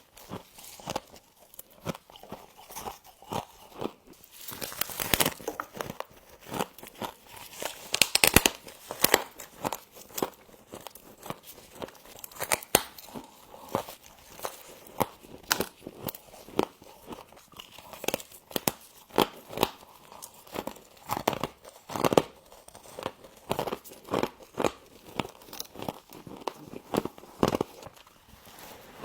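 Close-up crunching and chewing of frost: a dense, irregular run of sharp crackles, with a few louder crunches among them.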